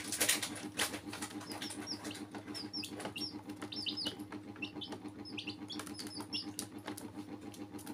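Domestic chicks peeping: many short, high calls, each falling in pitch, several a second. Underneath, clicks and scratches of small beaks and feet on a plastic basin, busiest in the first second.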